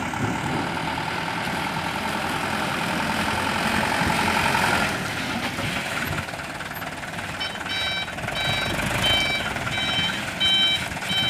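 Heavy diesel truck or excavator engine running steadily. About seven seconds in, a reversing alarm starts beeping in a regular row, a little under two beeps a second.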